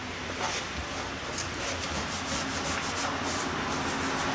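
A cloth rubbed back and forth over a freshly sanded yellow cedar boat horn: a steady rubbing with a few strokes a second.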